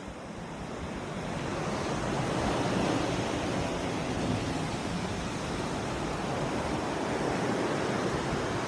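Ocean waves washing, a steady rush of water that grows louder over the first few seconds and then holds.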